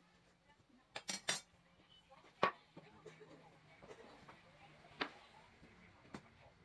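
Sharp knocks and clacks of timber pieces and a cordless drill being handled and set down on a wooden workbench. There are about six separate knocks: three in quick succession about a second in, the loudest about two and a half seconds in, and more around five and six seconds.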